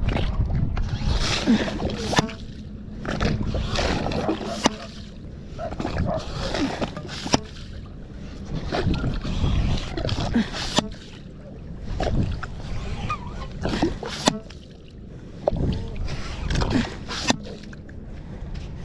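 Ghost shrimp bait pump worked in wet sand: repeated sucking and splashing strokes every second or two as sand and water are pulled up and emptied out, with sharp knocks between strokes.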